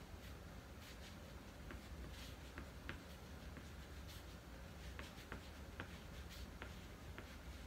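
White oil pastel scratching over heavyweight paper in short, irregular strokes as letters are written, faint above a low steady hum.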